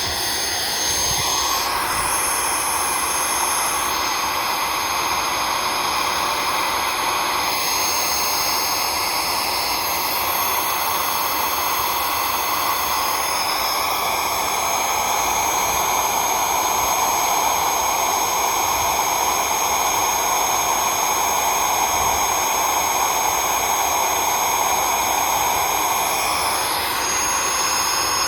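An 8.5 amp vacuum cleaner motor running steadily with a high whine. Its intake is taped shut, so it runs without cooling air and is heating toward burnout.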